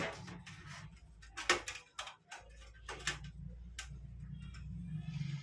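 Thin sheet-metal I/O shield being handled and snapped into a computer case's rear opening: a few sharp clicks and taps, the loudest about one and a half seconds in and again near three seconds, over a low steady hum.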